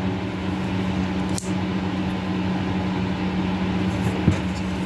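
A steady, low machine hum with one even tone, with a faint click about a second and a half in.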